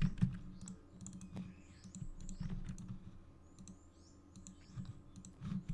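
Computer keyboard typing and mouse clicking: a scattering of light, sharp key and button clicks, busiest in the first couple of seconds and thinning out toward the end.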